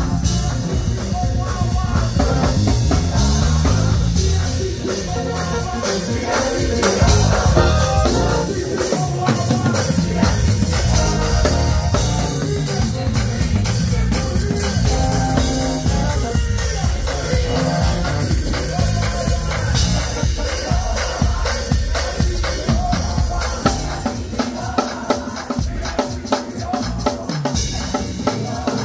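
Live gospel music: a choir singing over a band led by drum kit. In the last few seconds the drums play a fast run of sharp strokes.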